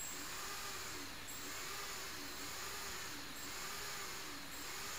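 Multirotor's brushless motors spinning steadily at idle after arming, a sign that the Naza flight controller's jammed gyro has been fixed. A faint tone in the whir rises and falls about once a second.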